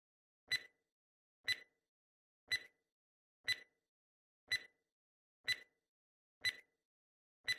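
Quiz countdown timer ticking once a second as it counts down: eight short, evenly spaced clock-tick sound effects.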